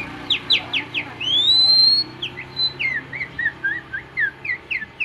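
A man whistling an imitation of songbird song, taken for a white-rumped shama: quick sharp slurred notes, a long rising whistle about a second in, then a fast run of short falling notes.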